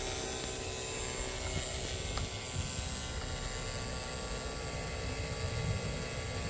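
Battery-powered NAVAC vacuum pump running steadily, evacuating a newly installed air-conditioning lineset.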